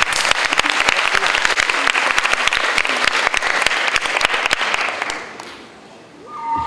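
Audience applauding in a large hall, a dense patter of many hands that dies away about five seconds in. Near the end, music begins with steady held tones.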